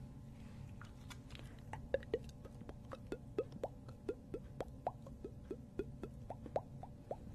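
A string of quick water-drop plops, each a short blip rising in pitch, about three a second, starting about two seconds in over a low steady hum.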